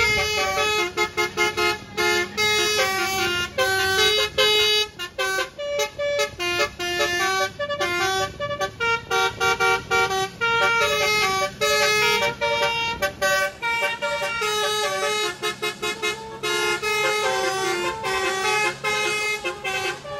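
Basuri telolet musical horn on a vehicle playing a fast melody of short, stepped notes, one after another without a break.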